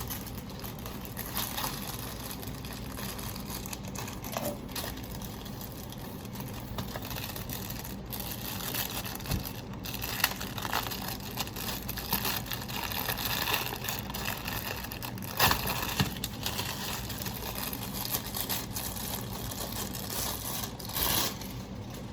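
Plastic wrapping and a cardboard cookie box being handled and pulled open, crinkling and rustling in short bursts with occasional light knocks.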